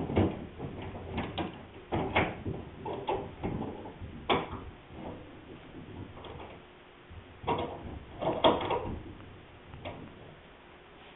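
Steel C-clamps being handled, set against the wood and screwed down on a glued boat rail: scattered clicks and knocks at irregular spacing, the sharpest about eight seconds in.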